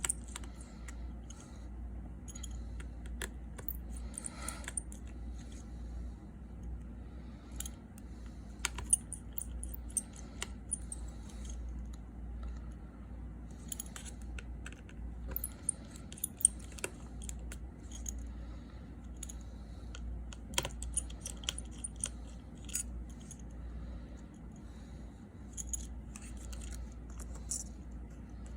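Scattered small metallic clicks and taps of a precision screwdriver and tiny screws as the five screws holding the iPhone 6s Plus's screen in place are taken out, over a steady low hum.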